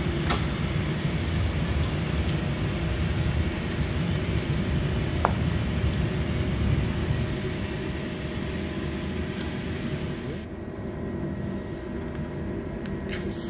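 A steady low mechanical rumble, with a few light clicks and a short clink of stainless steel rods being handled in a grill-grate frame. The rumble eases slightly about ten seconds in.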